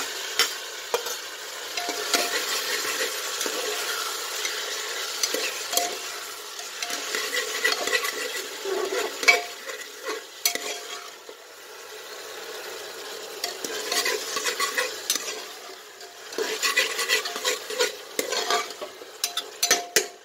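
Chopped onion, capsicum and tomato sizzling in hot oil in a metal pot on a high flame. A steel spatula stirs them, scraping and clinking against the pot again and again.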